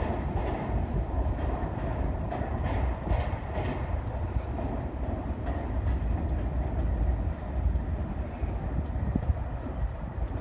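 BNSF freight train with GE diesel locomotives passing on a steel truss bridge: a steady low engine rumble under the noise of the moving train, with wheels clattering over the rail joints in the first few seconds.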